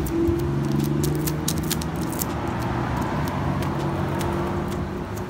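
Wax paper crackling and rustling under a gloved hand as it is pressed onto wet fibreglass body filler, in many short crisp clicks. A steady low engine-like hum runs underneath.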